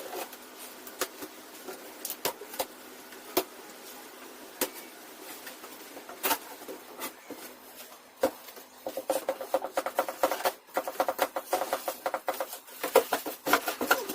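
Printer box and its packaging being handled and opened: scattered clicks and rustles, turning into a dense run of rapid crackles about nine seconds in.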